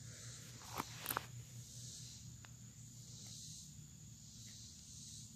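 Faint steady chirring of insects, with two short sharp clicks about a second in from fingers picking at the crumbly rotten wood of a log.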